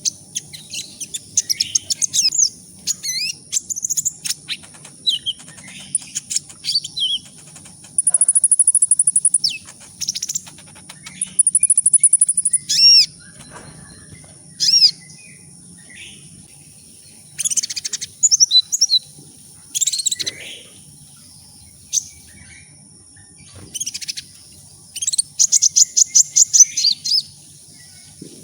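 A sunbird, the 'kolibri ninja', singing a rapid, high-pitched string of chips, short phrases and fast buzzy trills, with three longer trills about 8 s, 11 s and 25 s in. A thin steady high tone and a faint low hum lie under the song.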